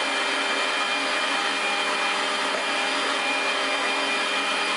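Countertop electric blender running steadily, blending a strawberry, yogurt and milk smoothie.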